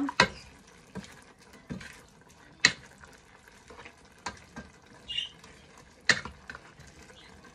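A plastic spoon stirring a thick mung bean stew in a stone-coated cooking pot, with about six sharp knocks of the spoon against the pot, the loudest a little under three seconds in.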